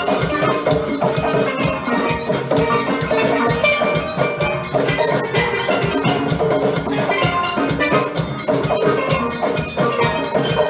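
Steel pan band playing an upbeat tune, many pans striking quick melodic notes over a steady drum-kit rhythm.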